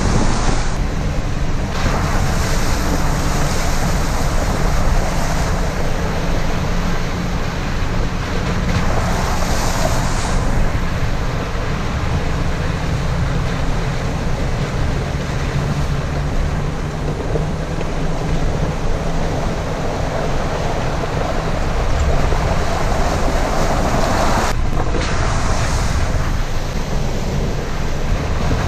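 Steady, loud rushing noise with a low drone beneath it: an off-road Jeep on the move, with wind buffeting the microphone. The noise breaks off briefly twice, about half a second in and near the end.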